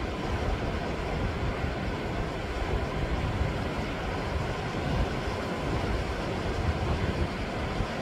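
Sea surf washing against a rocky shore: a steady wash of water noise with an uneven low rumble underneath.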